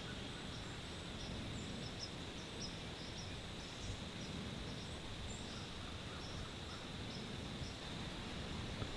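Quiet outdoor field ambience: a steady low wind rumble on the microphone, with faint high bird chirps about twice a second.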